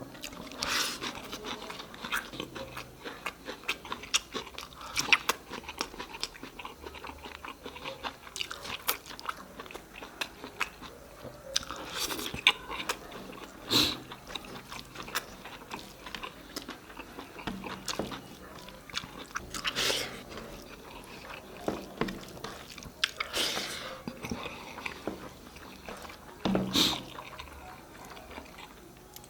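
Close-miked eating: steady chewing with moist smacking, broken by louder crunchy bites every second or two.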